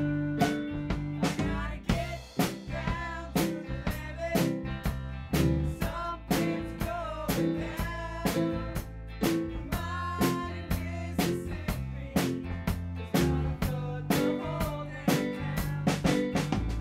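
Rock band jamming: drum kit keeping a steady beat under electric guitars and keyboards, with a lead line of bending notes over the top.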